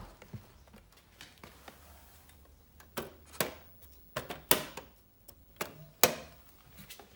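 A string of sharp clicks and taps from a hand handling a model RC truck's hinged side panels and miniature wooden pallet load, mostly in the second half, the loudest about six seconds in.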